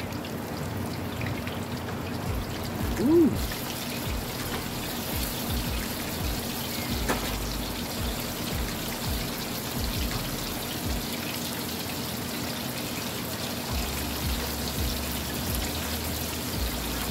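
Batter-coated croaker fish deep frying in oil heated to about 350°F: a steady sizzle and bubbling of the oil around a fresh batch just dropped in.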